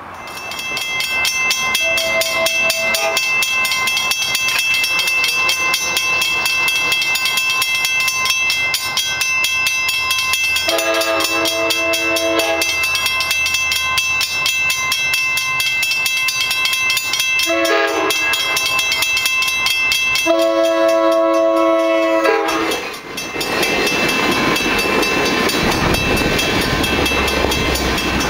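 Grade-crossing warning bells start ringing about half a second in. An approaching Amtrak train sounds its multi-chime air horn four times, short, long, short, long, the crossing signal. Its last blast ends about 23 seconds in, and the train then rumbles through the crossing.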